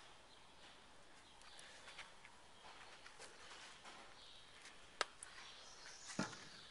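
Very quiet room hiss with a few small clicks. There is a sharp click about five seconds in and a louder knock just after six seconds, from plastic colourant squeeze bottles being set down and picked up on the workbench.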